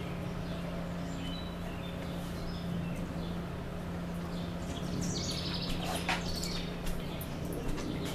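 Birds chirping over a steady low hum. In the last few seconds come a brief rasping noise and a few sharp ticks, which fit a large dog's claws on the porch floor.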